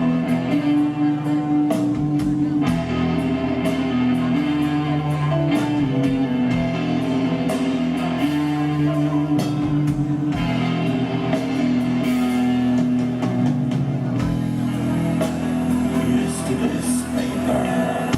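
Live doom/gothic metal band playing an instrumental passage: distorted electric guitars holding slow, sustained chords over bass and a drum kit.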